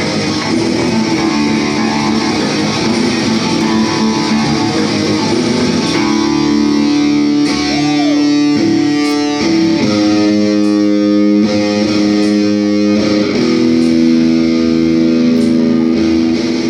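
Live band music led by electric guitar. From about six seconds in it settles into long held chords that change every few seconds.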